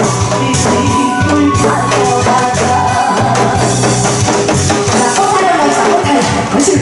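Loud performance music for a pumba show: a steady bass-heavy beat with drums and shaken percussion under melodic lines, with some singing.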